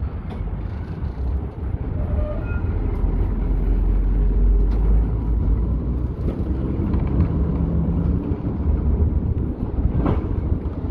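Old Vienna tram running: a low rumble that swells to its loudest about four seconds in, with a faint hum over it, and a sharp click near the end.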